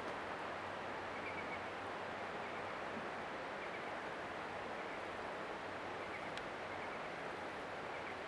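Steady rushing outdoor ambience in a forested gorge, with a few faint high bird chirps now and then.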